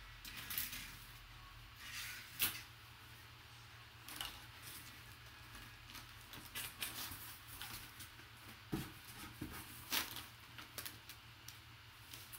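Cardboard scraping and rustling as a flat cardboard-wrapped package is slid up out of a large shipping box, with a few sharper scuffs, the loudest about two and a half seconds in and again near ten seconds.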